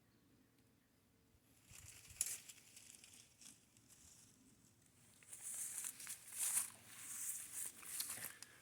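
Footsteps crunching and rustling through dry leaf litter and brush, irregular steps starting about a second and a half in and growing louder in the last few seconds.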